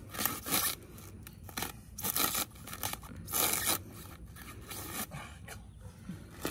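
Hand pruning saw cutting through a small palm trunk, rasping strokes in uneven bursts: three strong strokes in the first four seconds, then lighter, shorter ones.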